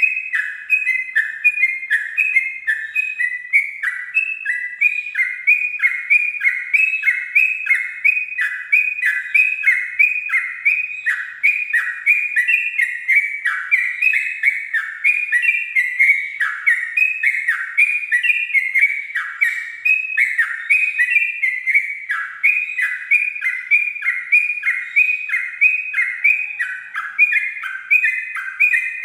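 Yellow-vented bulbul (trucuk) singing a long, unbroken run of quick notes, about two a second, stepping up and down in pitch without a pause: the continuous 'ropel' song style.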